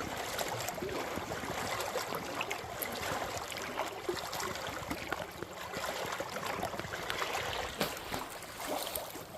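Small lake waves lapping and washing on the shoreline, a continuous splashing wash with little splashes and trickles throughout.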